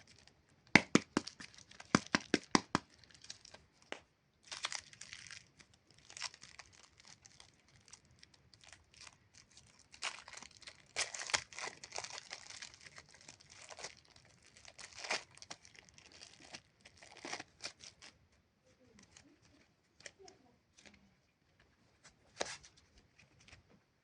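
Packaging of super clay being torn and crinkled open, starting with a quick run of sharp clicks, then irregular crackling and rustling that thins out near the end.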